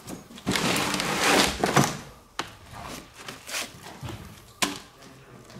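Rummaging through junk: a loud scraping, rustling stretch for about a second and a half, then a couple of sharp knocks.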